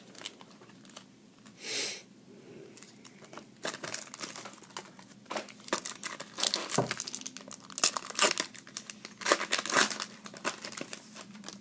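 Crinkling and tearing of a trading-card pack wrapper as it is ripped open and handled, a dense run of crackles starting a few seconds in, with a brief swish near the start.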